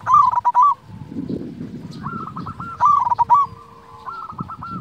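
Zebra dove (perkutut) cooing: phrases of rapid staccato notes running into a short trill, repeated every second or two. The loudest phrases come at the start and about three seconds in, with quieter ones between.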